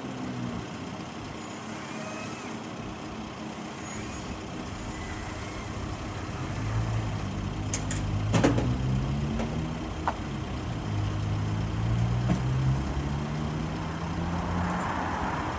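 An engine running, its pitch shifting up and down in steps as the load changes, with a couple of sharp knocks about halfway through.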